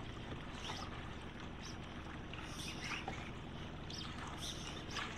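Small fishing boat's motor running steadily at trolling speed.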